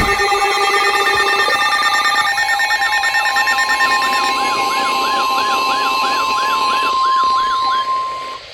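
Several electronic alarm tones and wailing sirens sound together, the wails rising and falling a few times a second. Under them runs a steady tone, the weather radio's warning alarm tone that comes before a severe thunderstorm warning, and it cuts off near the end.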